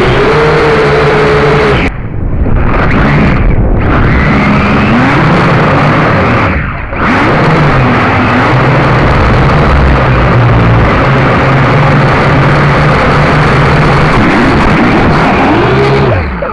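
Akaso X5C toy quadcopter's propellers and motors, a loud whine heard through the drone's onboard microphone, its pitch shifting as the throttle changes. It drops away briefly twice, then winds down in pitch and fades near the end.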